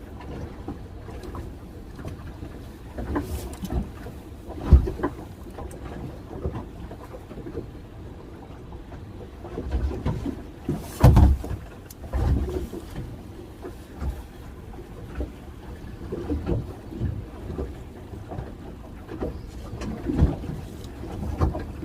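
Fishing boat rocking on choppy water: a steady low wash of waves against the hull, broken by irregular knocks and thumps, the loudest about five and eleven seconds in.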